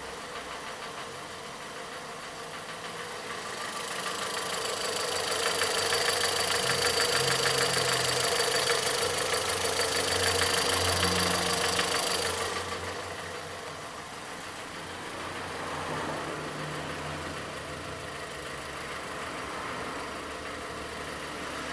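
Volkswagen Polo 1.6 engine idling with an intermittent light knock; the engine is misfiring on cylinders 1 and 4. The sound grows louder a few seconds in and drops back suddenly about halfway through.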